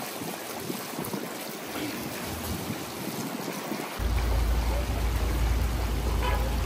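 Broth boiling in a huge kazan of plov, a steady watery rush. A deep rumble joins about four seconds in.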